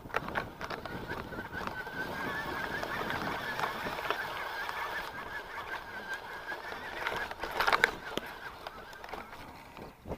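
Mountain bike riding a dry dirt singletrack: a steady high-pitched whine from the bike runs under rattles and knocks from the trail, and fades after about eight seconds. The loudest jolts come about seven and a half seconds in.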